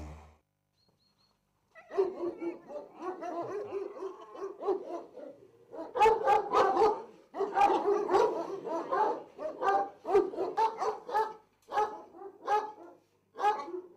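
Šarplaninac (Yugoslav Shepherd) dogs barking repeatedly from their kennel runs, starting about two seconds in, with brief pauses between volleys.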